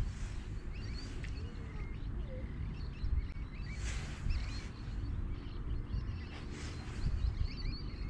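Small birds chirping again and again, short high calls, over wind buffeting the microphone with a steady low rumble that swells now and then.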